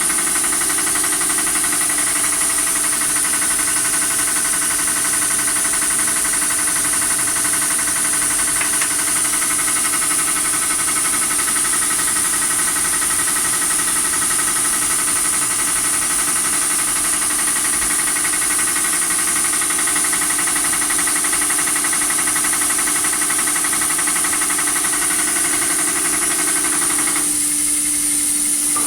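A motor running steadily at constant speed, with a steady hum and a high whine; about 27 seconds in, the sound changes abruptly as some of its higher tones drop out.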